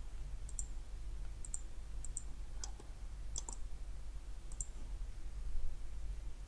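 Computer mouse buttons clicking: about seven short clicks, some in quick pairs, over a low steady hum.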